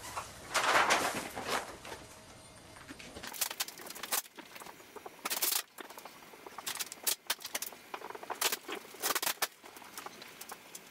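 Car-wrap vinyl film crackling and rustling as hands lay it over a car hood and smooth it with a squeegee, in short irregular crackles and scrapes, with a louder rustle about a second in.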